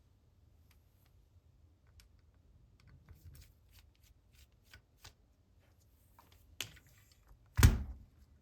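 Small clicks, ticks and light scrapes of a small screwdriver and fingers handling a metal camera body while its cover screws are being taken out. Near the end comes a sharper knock, then a heavy thump, the loudest sound.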